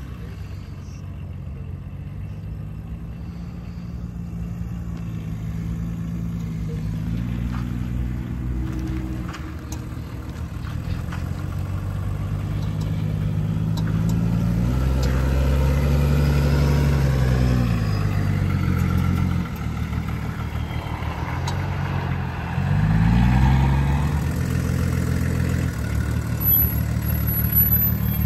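Diesel engine of a Pinzgauer 718 six-wheeler crawling over dirt mounds, its pitch rising and falling as the throttle is worked, getting louder as the truck nears. Near the end the engine dips, then revs up quickly before settling.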